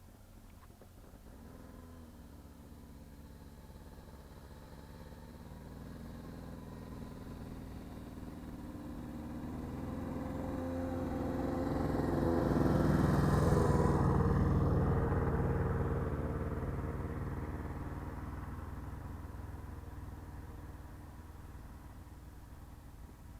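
A motor vehicle's engine passing by: it grows steadily louder, is loudest a little past halfway, then fades away again.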